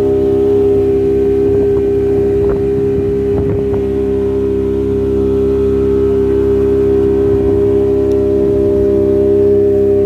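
Outboard motor running at a steady speed, pushing a small open boat, with a constant hum under a low rumble. A few faint knocks come in the first few seconds.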